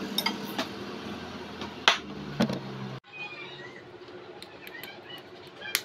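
A small metal spatula clinking against a miniature aluminium wok, a few sharp clicks with the loudest about two seconds in, over a steady low hum. About three seconds in the sound cuts off abruptly, leaving quieter room sound with faint light clicks.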